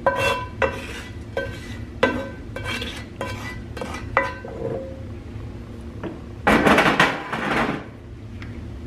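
Wooden spoon scraping and knocking cooked bacon out of a cast-iron skillet into a stainless steel stockpot, each knock giving a short metallic ring. About six and a half seconds in comes a louder stretch of scraping and stirring in the pot.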